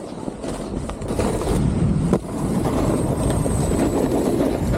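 Snowboard sliding and carving over packed snow, with wind rushing on the microphone. It grows louder about a second in as speed builds, and there is one sharp knock just past two seconds.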